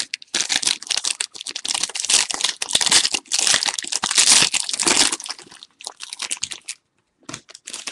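Wrapper of a Panini Playbook football card pack crinkling as it is torn open and handled, in runs of crackling with a short pause about two-thirds of the way through.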